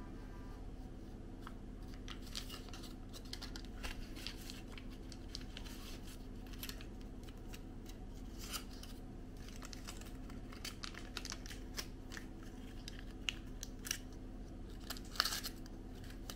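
Aluminium foil crinkling and rustling in irregular small crackles as nail-polish remover wraps are folded around fingertips, with a louder crackle about fifteen seconds in.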